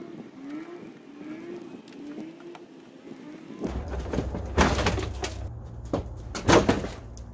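Plastic clips on a Dodge Magnum's front bumper cover cracking loose as the cover is pulled off by hand. There are two loud sharp snaps about two seconds apart over a low wind rumble on the microphone. Before them come faint short squeaks, repeating about every half second.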